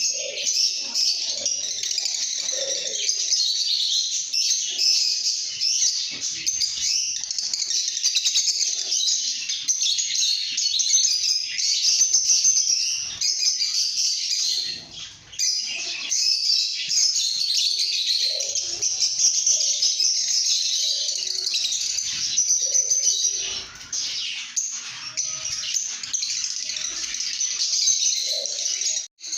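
Lovebirds chattering in a flock: dense, high-pitched chirping almost without pause, briefly dropping away about halfway through.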